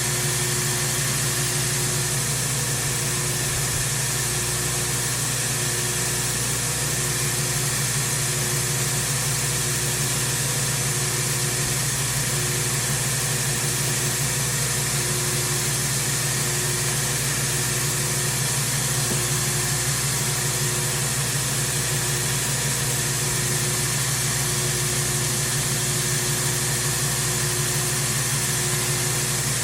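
Electric grinder running steadily while a steel knife blade is ground on it, taking the spine down to form a new point: a constant motor hum under an even grinding hiss.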